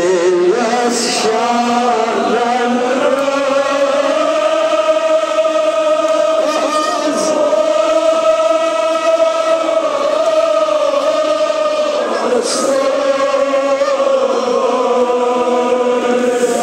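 Men's voices chanting a Kashmiri marsiya (Shia mourning lament) together, drawing out one long held note for several seconds before a new phrase begins about twelve seconds in.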